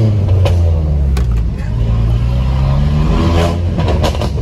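Modified Volkswagen Polo engine with its dual aftermarket exhaust, heard from inside the cabin, revving with the note climbing over a couple of seconds. A few sharp pops break in near the start and near the end.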